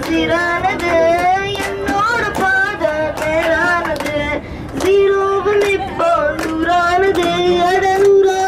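A child singing a song into a bus's PA microphone, with long held notes, while passengers clap along.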